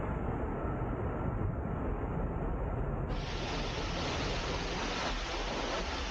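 Steady wind noise on the microphone, with a low rumble and a continuous hiss that grows brighter about three seconds in.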